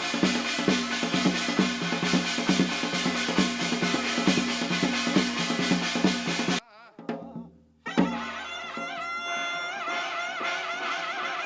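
Korean shamanic gut ritual music: fast, dense drumming that cuts off suddenly about two-thirds in. After a brief near-silent gap and a sharp hit, a new passage begins with a wavering melodic instrument line over lighter accompaniment.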